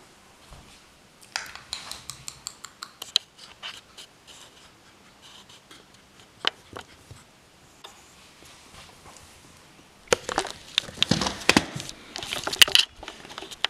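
Scattered light clicks and taps close to the microphone, then, about ten seconds in, a dense, louder run of knocks and rustling as the camera is picked up and moved.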